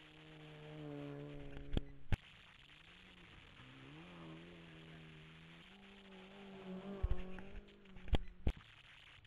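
Rally car engine revving up and down through gear changes on a gravel stage, its pitch rising and falling. Two pairs of sharp, loud cracks cut through it, about two seconds in and again near the end.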